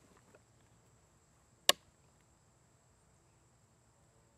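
One short, sharp metallic click about a second and a half in, from the action of a Savage Model 42 rifle/shotgun combination gun as it is readied to fire. Quiet otherwise.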